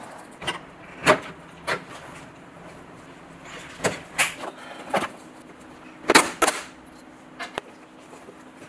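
Plastic filter drawers of a tower air purifier being slid out and handled: a string of short sliding scrapes and clunks, the loudest pair about six seconds in.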